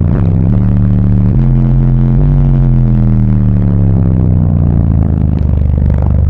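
Crescendo Audio Contralto subwoofers playing a bass demo, heard inside the vehicle's cabin: deep held bass notes that step to new pitches, then one long falling bass sweep.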